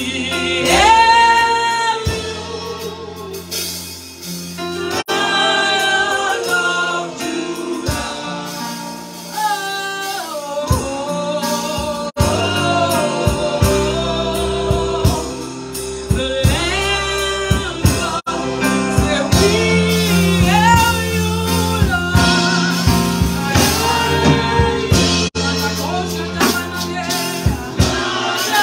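A woman sings a gospel worship song into a microphone, with long held notes and sliding phrases over steady low sustained accompaniment.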